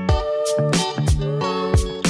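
Instrumental background music: plucked, pitched notes over a regular drum beat.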